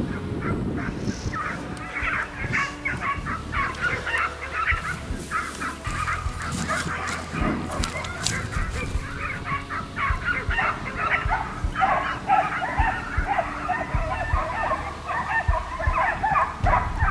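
A pack of short-haired black-and-tan Segugio Italiano scent hounds baying together, many overlapping high yelping voices giving tongue as they follow a hare's trail.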